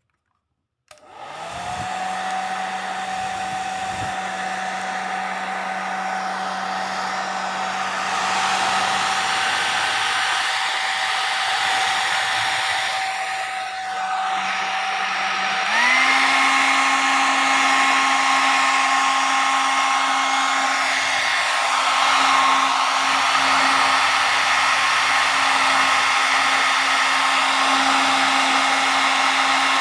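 Hair dryer switched on about a second in, running with a steady whine over the rush of air. About halfway through it steps up to a higher speed setting: the whine jumps higher in pitch and it gets louder.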